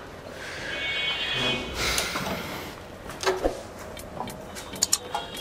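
Handling noise as a heavy power tiller is lifted and dragged out of its shipping box: scraping, a high squeak around a second in and again near the end, and a few knocks.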